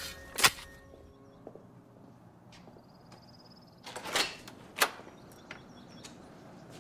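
A sharp click about half a second in, then a glass-paned wooden door being opened about four seconds in: a short rattle of the handle followed by a sharp latch click.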